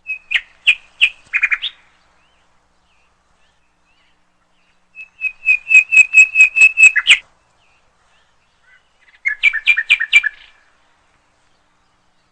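A bird singing three phrases, each a quick run of repeated sharp notes at about five a second, lasting one and a half to two seconds, with pauses of a few seconds between them.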